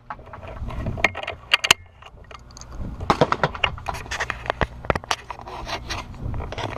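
Wind buffeting the microphone with a low rumble, under a run of sharp clicks and light rattles, like handling and reloading gear.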